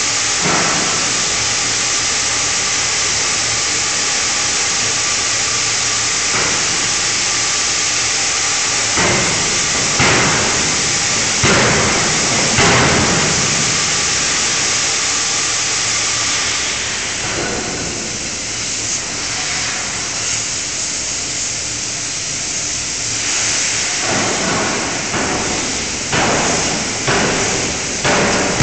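A fully hydraulic closed-die forging hammer striking hot steel: four heavy blows about a second apart around a third of the way in, then another run of blows near the end, over a steady loud hiss of machinery.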